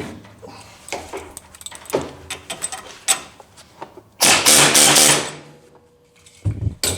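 Metal clinks and knocks from hand tools working apart a GM door hinge's roller detent. A loud, harsh burst lasting about a second comes a little past four seconds in, and a short loud knock comes near the end.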